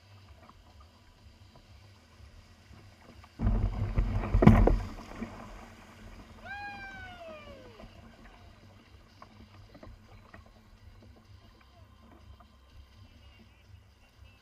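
A loud rushing, splashing burst lasting about a second, with a sharp knock at its loudest point. A couple of seconds later comes one clear call that slides down in pitch.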